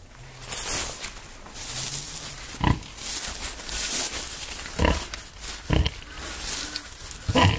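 A pig grunting in short, single grunts, four times, as it roots with its snout through rustling straw bedding.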